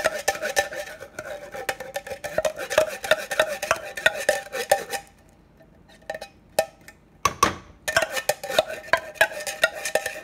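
Metal utensil scraping and clinking against a tin can and steel pot as cream-style corn is scraped out, rapid clicks with a ringing metallic tone. The scraping stops for about two seconds in the middle, then resumes.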